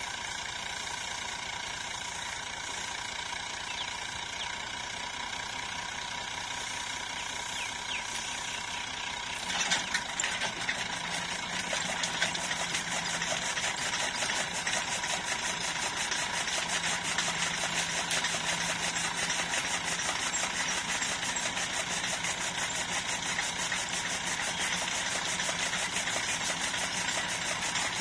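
Massey Ferguson 240 tractor's three-cylinder diesel running steadily while driving a chaff cutter through a shaft, with the cutter's mechanism turning. About ten seconds in the sound gets louder and busier, with a fast rattle over the engine's steady running.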